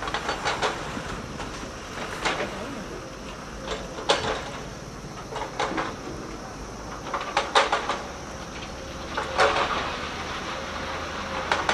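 Diesel excavator engines running steadily, with irregular knocks and clatters of broken rock every second or two as an excavator bucket handles stone and dumps it onto a steel screening grid.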